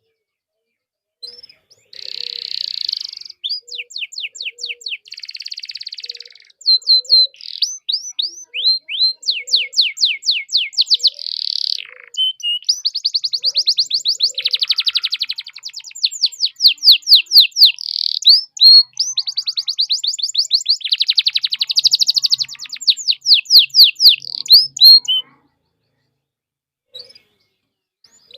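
Domestic canary singing a long, fast song of rapid trills and rolls of quickly repeated sweeping whistled notes, stopping a few seconds before the end.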